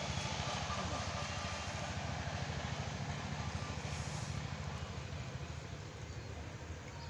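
A steady, low engine drone that slowly fades over the last few seconds.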